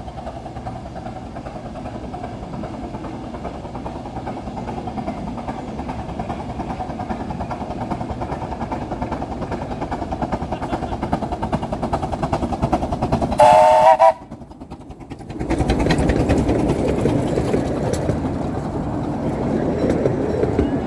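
No.6 Samson, a 15-inch-gauge 4-8-2 steam locomotive of the Romney, Hythe & Dymchurch Railway, approaching at speed with its rapid exhaust beats growing steadily louder. About 13 seconds in it gives a short, loud whistle as it reaches the station. It then runs through, with the coaches rumbling and clattering past close by.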